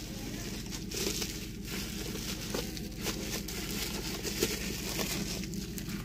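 Faint rustling and crinkling with scattered small clicks as a car body control module is picked up and handled, over a steady low hum.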